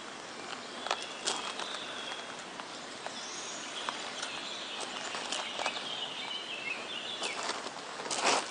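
Birds chirping and singing over a steady outdoor hiss, with scattered faint clicks and a loud burst of noise just before the end.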